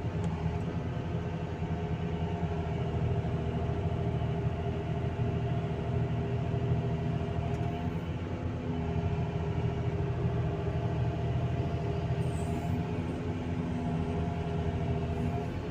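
Excavator's diesel engine running steadily under load while the bucket digs and swings, with a low hum and steady pitched tones that shift slightly about halfway through.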